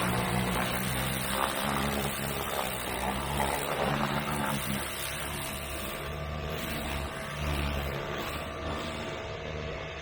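Pressure washer running with a rotating tip, its water spray blasting dirt off a tractor tire and rim: a steady hiss of spray over a constant motor hum.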